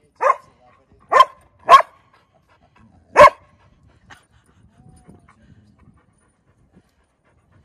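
A dog barking four short, sharp barks: three in quick succession within the first two seconds, then one more about three seconds in.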